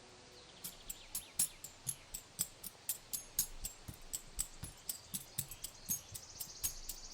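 Woodpecker pecking at wood: a string of sharp, irregular taps about four a second, starting under a second in. Faint high bird chirps sound among the taps.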